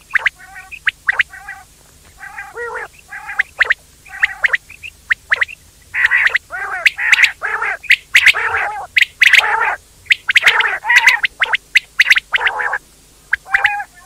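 Quails calling in a dense run of short, sharp notes mixed with pitched, arching calls. The calls crowd together and overlap in the second half.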